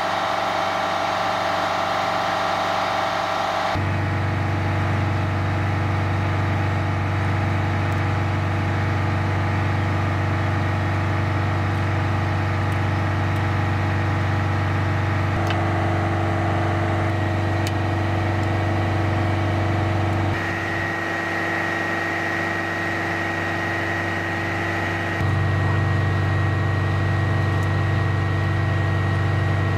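Heavy military tow truck's diesel engine idling with a steady low hum. The tone shifts abruptly a few times, and a thin high whine joins about two-thirds of the way through.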